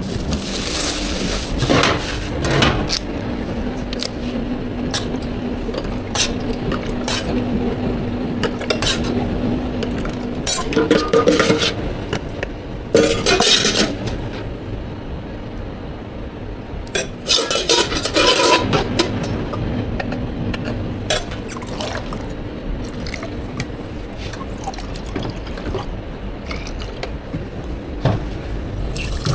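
Milk tea shop counter work: cups, utensils and containers clinking and being set down, with liquid being poured. A steady low hum runs under the clatter for several seconds near the start, and the loudest clatter comes in two bursts around the middle.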